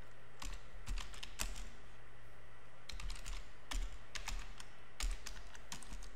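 Typing on a computer keyboard: quick runs of key clicks, with a pause of about a second partway through, over a low steady hum.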